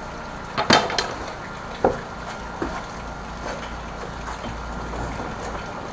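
A few sharp knocks and clatters, the loudest pair just under a second in and a smaller one about two seconds in, over a steady low rumble.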